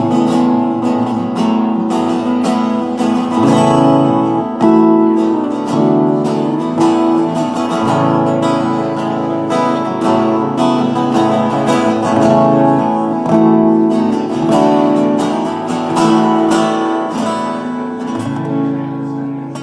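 Two acoustic guitars strumming chords together without singing, an instrumental passage of a folk-pop song, easing off in volume near the end.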